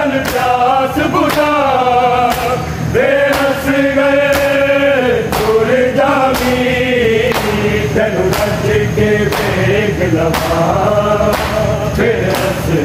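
A group of men singing a Punjabi noha (mourning lament) together, over a steady rhythm of sharp slaps of hands on bare chests: matam, ritual chest-beating in mourning.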